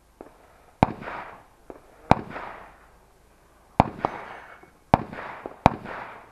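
Five loud rifle shots at irregular intervals of roughly one to one and a half seconds, each followed by a trailing echo, with a few fainter shots between them.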